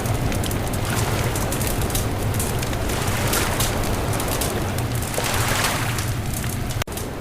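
Beach bonfire crackling and popping over a steady low rumble. The sound cuts out for an instant near the end.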